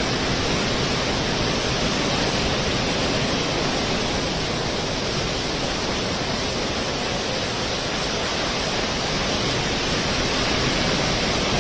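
Steady rushing roar of strong cyclone winds and rough sea, with wind buffeting the microphone.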